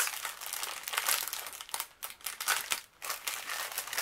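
Plastic packaging crinkling: a strip of small plastic bags of rhinestone drills handled over a canvas in a clear plastic wrap. The rustling is near-continuous, with two brief pauses about two and three seconds in.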